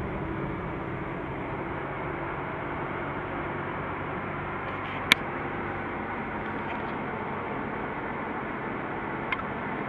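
Toyota four-wheel-drive cruising at highway speed: steady engine hum and road noise heard from inside the cab. A single sharp tick comes about five seconds in and a fainter one near the end.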